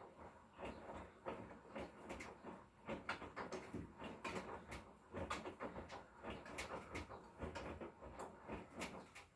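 Hotpoint Core washing machine mid-wash, laundry tumbling in the turning drum: a quiet run of irregular light knocks and clicks over a low rumble.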